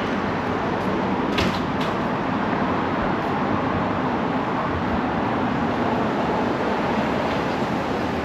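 Steady rumbling noise of road vehicles, with two short clicks or knocks about a second and a half in.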